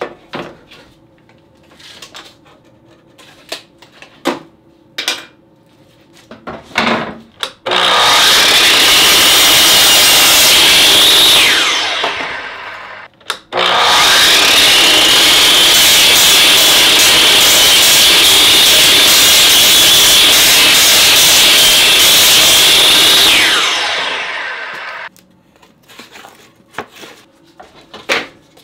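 Milwaukee sliding compound miter saw cutting pallet wood. The saw runs for about four seconds and winds down with a falling whine, then runs again for about ten seconds and winds down the same way. Wooden boards knock as they are handled before and after the cuts.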